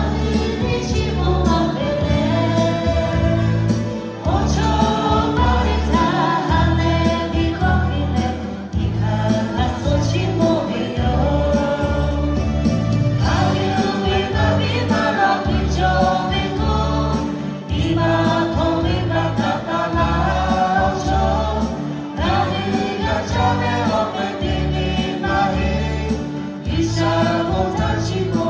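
A mixed choir, mostly women, singing together into microphones over an amplified band with keyboard and a steady bass beat.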